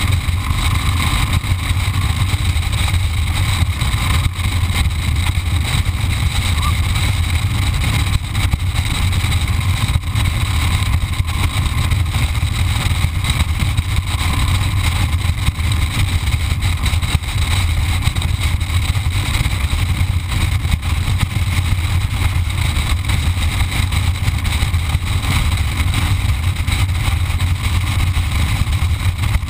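Motorcycle cruising at a steady speed, heard from a camera on the bike: a steady low engine rumble mixed with wind and road noise.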